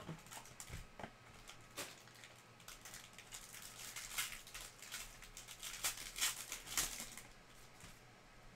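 Foil trading-card pack being handled and torn open by hand, its wrapper crinkling and crackling. A few separate rustles come first, then a dense run of crinkling that is loudest about six to seven seconds in.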